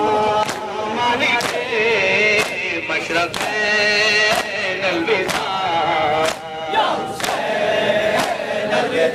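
Crowd of men chanting a nauha (Shia lament) in chorus behind a lead voice on a microphone, with sharp slaps of matam (chest-beating) keeping time about once or twice a second.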